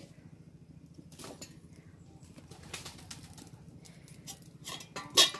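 Kitchen utensils knocking: a few light knocks, then one sharp loud clatter near the end, over a steady low hum.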